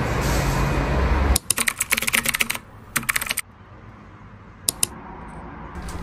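A low hum that cuts off suddenly, then two quick runs of rapid, light clicking and, near the end, a pair of single clicks.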